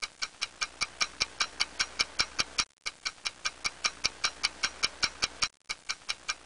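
Rapid, even ticking, about five ticks a second, broken twice by a short silence.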